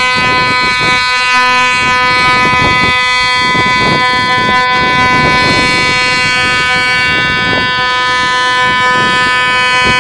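QRA scramble alarm hooter sounding one continuous, steady, loud tone that cuts off suddenly at the end, calling the Lightning crews to their aircraft.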